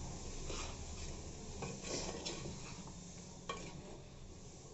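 A spoon stirring diced raw mango pieces coated in spices in a pot, making rough scraping swishes, with a couple of sharp clicks of the spoon against the pot.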